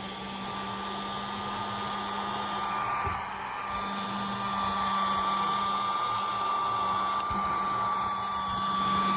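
Tiny handheld mini vacuum cleaner running steadily: a small electric motor whirr with a constant high-pitched whine, growing a little louder about halfway through.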